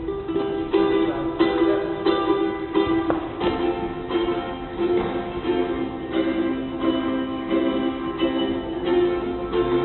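Ukulele in G-C-E-A tuning being played: chords ring out, with a new strike about every half second in a steady rhythm.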